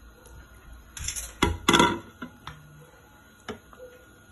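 Raw chicken pieces tipped from a bowl into a black electric cooking pot: a short cluster of heavy knocks and clatter about one to two seconds in, then a few light clicks of the bowl and utensils.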